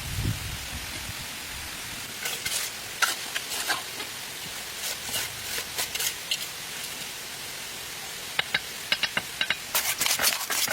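Steady hiss of rain, broken by clusters of short clicks and scrapes about two seconds in, around five to six seconds, and thickly near the end.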